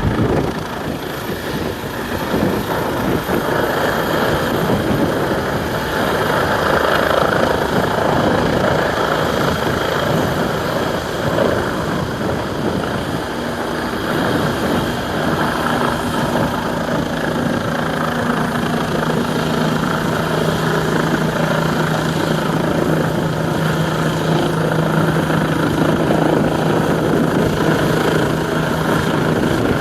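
Police helicopter departing, its rotors and turbine running loud and steady with a fast rotor chop. A steady low hum joins about halfway through and holds to the end.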